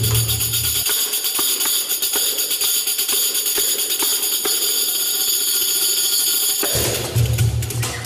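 A jingle frame drum of the tambourine type, played with rapid hand strokes; its metal jingles ring in a fast, dense rhythm. Deep djembe bass strokes drop out about a second in and come back near the end.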